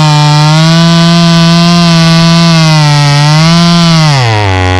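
Gas chainsaw running at high revs, its pitch wavering slightly as it works through the queen palm trunk. About four seconds in, the revs fall sharply toward idle.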